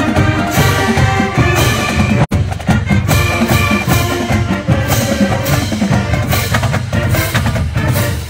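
College marching band playing in the stands: saxophones, sousaphones and brass over a steady drum beat. The sound drops out for a split second about two seconds in.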